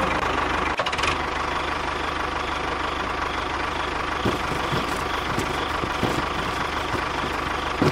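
A small motor running steadily, with a couple of sharp knocks, one midway and one near the end.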